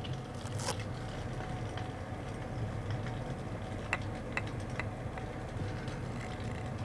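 Steady low hum of an electric fireplace space heater running, with a few faint ticks about four seconds in.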